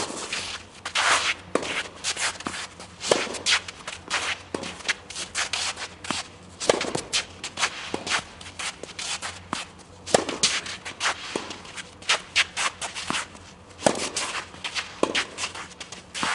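Tennis play on court: sharp hits of racket on ball every few seconds, with footsteps and shuffling of shoes between them.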